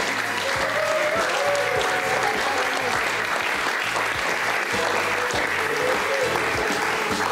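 Studio audience applauding over upbeat show music with a steady beat.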